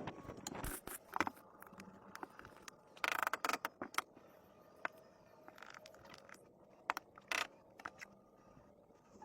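Scattered scrapes and sharp clicks of hand work. There is a short run of rapid scraping about three seconds in and single clicks spread through the rest.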